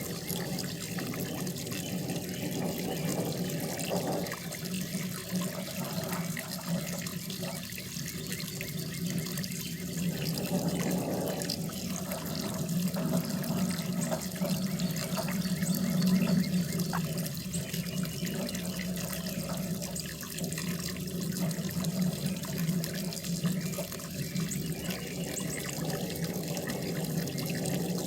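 Running water in a koi pond: a steady, continuous splash of flowing water that swells and eases a little in loudness.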